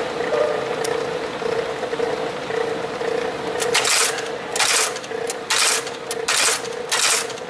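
Graphotype metal-plate embossing machine with its motor humming steadily, then a quick run of stamping strokes in the second half as characters are punched into the metal plate.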